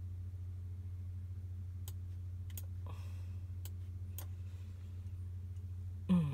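Steady low electrical hum with a handful of sharp clicks in the middle, then a brief falling voice sound, like a sigh, at the very end.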